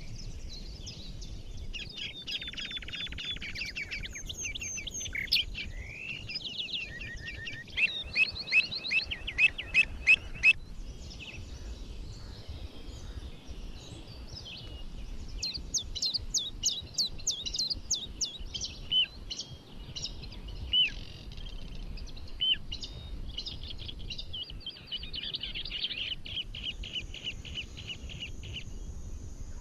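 Several songbirds singing and chirping at once: trills and quick runs of whistled notes. About eight seconds in, one bird gives a loud, fast series of sharp repeated notes for a couple of seconds. A low steady rumble runs underneath.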